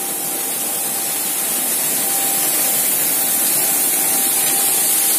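Grain pouring in a steady stream from an overhead conveyor spout onto a heap: a continuous even hiss, with a faint steady whine beneath it.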